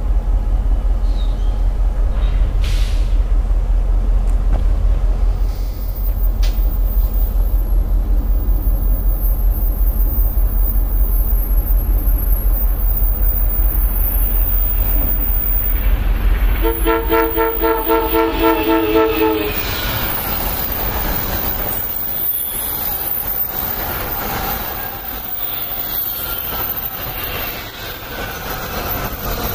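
Diesel locomotive of a CSX freight train running with a loud low rumble, then a train horn sounding one blast of about three seconds. An NJ Transit electric multiple-unit train follows, its wheels rushing and squealing as it approaches and passes.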